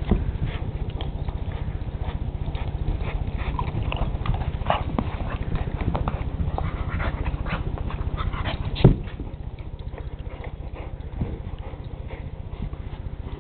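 A red-nose pit bull and a black pit bull puppy playing over a sock: scuffling, chewing and small dog sounds, with one loud thump about nine seconds in, over a steady low hum.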